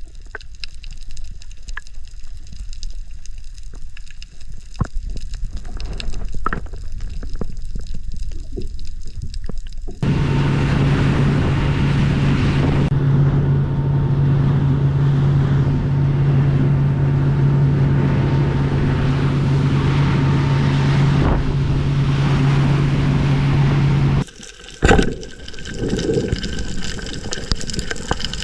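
Water sloshing and gurgling with scattered clicks, then after about ten seconds a steady engine hum takes over for some fourteen seconds and cuts off suddenly, followed by more water noise.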